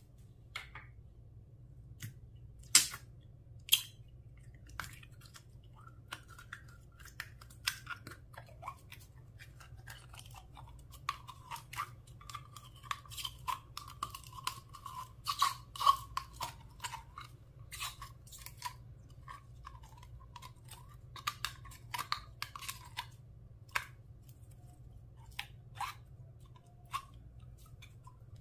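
Clear slime being squished and kneaded by hand: irregular sticky clicks and small pops, with a denser run of squelching through the middle.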